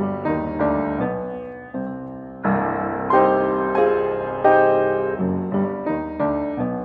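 Solo piano music of the silent-film accompaniment kind: a steady run of struck chords and notes, each fading after it is played.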